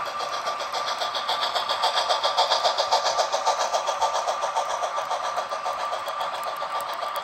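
HO scale model steam locomotive running past on its track with a quick, even pulsing beat over a steady high hum. The beat is loudest about two to three seconds in and eases as the passenger car rolls by.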